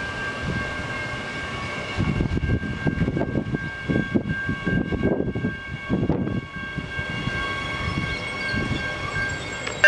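Adelaide Metro 4000 class electric multiple-unit train passing, with a steady high whine over the rumble of its wheels on the track. The rumble swells in uneven pulses through the middle of the pass.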